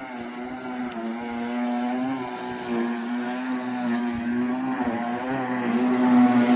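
Electric motor of a radio-controlled boat running with a steady whine, its pitch wavering slightly with the throttle and getting louder near the end.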